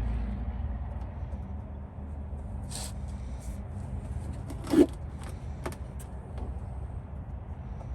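A few small clicks and scrapes from working the oil drain plug out by hand under the truck, with one sharper knock about five seconds in; a low rumble fades away in the first couple of seconds.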